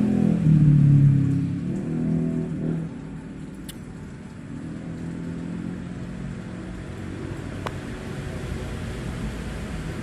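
A motor engine running, loud for about the first three seconds and then fading to a quieter, steady sound.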